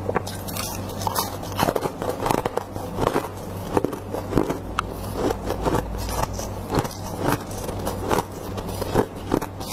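Close-up crunching of freezer frost being bitten and chewed: irregular crisp crunches, several a second, with scraping.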